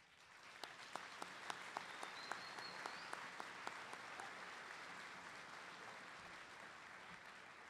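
Audience applauding, with a number of sharp individual claps standing out in the first few seconds; the applause then slowly fades toward the end.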